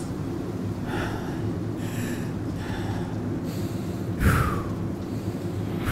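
A person breathing hard, a string of short heavy breaths, the loudest a little past the middle, over the low steady drone of a race car's engine.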